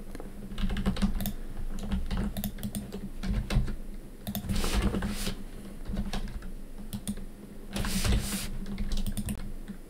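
Computer keyboard keys clicking irregularly as shortcuts are pressed, over a steady low hum.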